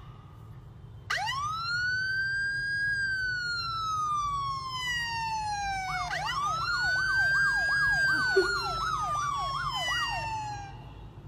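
Police siren sound played through a phone speaker: a long wail that rises and slowly falls, then a second wail that breaks into a fast up-and-down yelp, about two sweeps a second, fading near the end.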